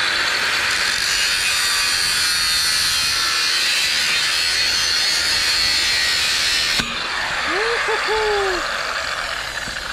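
Angle grinder with a cut-off disc cutting through a rusty steel water pipe: a loud, steady, high grinding screech. About seven seconds in, the cut ends abruptly and the grinder runs on free, lifted off the pipe, a little quieter.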